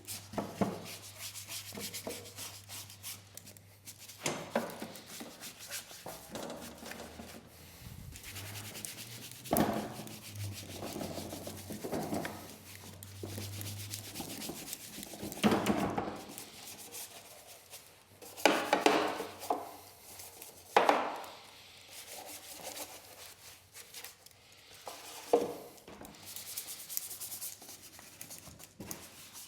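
Scrubbing and rubbing on a riding lawn mower being cleaned with an all-purpose cleaner: steady scratchy friction with several louder strokes through the middle.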